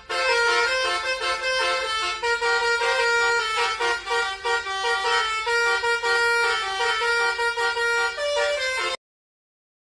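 Bus 'telolet' horn playing a quick melody, a run of short musical horn notes one after another. It cuts off suddenly about nine seconds in.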